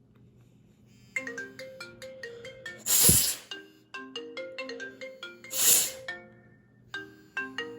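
iPhone 5's built-in speaker playing a marimba-style ringtone, a quick repeating pattern of notes that starts about a second in; the water-soaked phone's speaker still works and doesn't sound bad. Two loud bursts of rushing air noise cut across it, about two and a half seconds apart.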